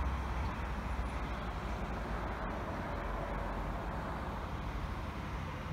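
Steady background noise of road traffic with a heavy, fluctuating low rumble.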